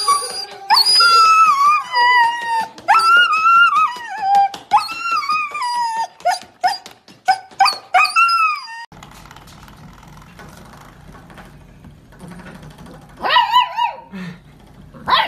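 A husky whining and howling in a long run of high, wavering cries that slide up and fall away, one after another. After a cut, a puppy howls briefly twice near the end.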